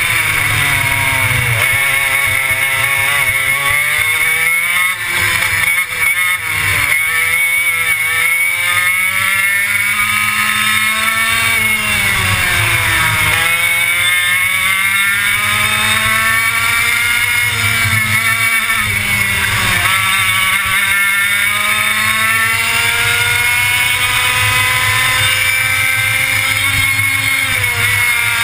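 Racing kart's engine heard up close from the kart itself, at full throttle. Its pitch climbs along each straight and drops sharply when the kart slows for a corner, several times over, with a brief rough, uneven patch a few seconds in.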